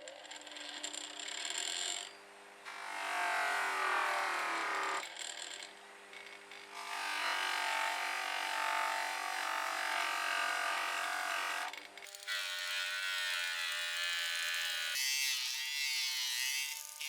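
A small electric power tool running in several stretches, with steady whining tones. Its pitch slides as it speeds up, slows or is loaded, and it changes suddenly a few times.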